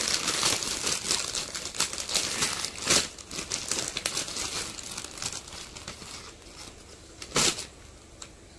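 Clear plastic bag crinkling as baby clothes are handled and pulled out of it. Busy crinkling for the first few seconds with a loud crackle about three seconds in, quieter rustling after that, and another loud crackle near the end.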